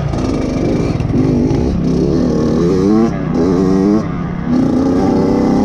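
Dirt bike engine revving hard under throttle, its pitch climbing in repeated rising sweeps about a second long with short dips between, heard from on the bike as it rides the track.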